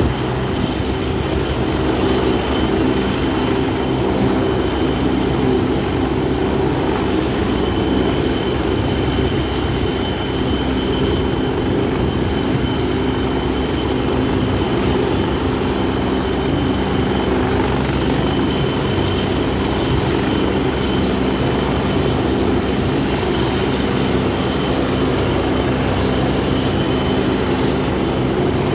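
Helicopter at close range, its rotor and turbine engines running steadily, with a thin high whine held over the rotor noise.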